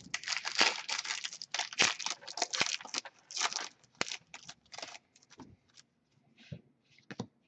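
Foil wrapper of a hockey card pack crinkling and tearing as it is opened, in a dense crackle for about five seconds. Then fainter, scattered clicks as the cards are handled.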